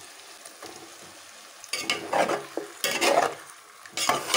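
Raw chicken pieces sizzling in hot oil and onion-tomato masala in a steel pot. A steel spatula scrapes and stirs against the pot in several strokes from about halfway through, with another loud stroke near the end.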